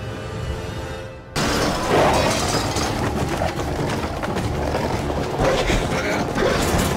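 Suspenseful horror score with low sustained tones, then about a second in a sudden loud crash cuts in and dense, hard-hitting action music with impact sounds takes over.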